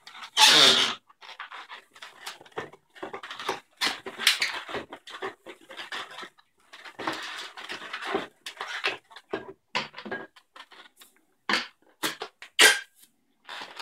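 Latex modelling balloons squeaking and rubbing against each other and against the hands as they are twisted and handled, in irregular bursts. The loudest squeak comes about half a second in, with two sharp ones near the end.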